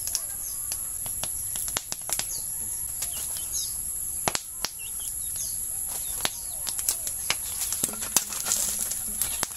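Fire crackling and popping irregularly as coconut husks burn in the firebox of a copra smoke dryer. A steady high insect drone and a few faint bird chirps run underneath.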